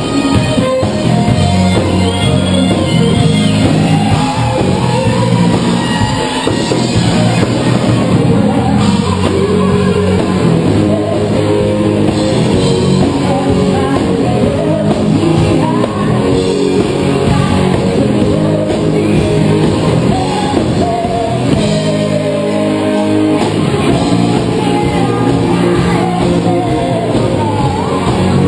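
Live rock band playing loud: electric guitar, keyboard and drum kit, with a woman singing lead.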